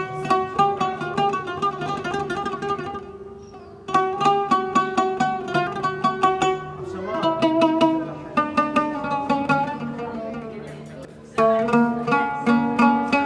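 Background music led by a plucked string instrument playing quick runs of notes over held lower tones, with a fresh phrase starting loudly about four seconds in and again near the end.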